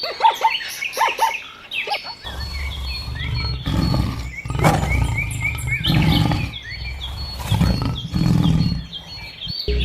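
Several deep, rough animal calls in a row, each about a second long, over steady high bird chirping.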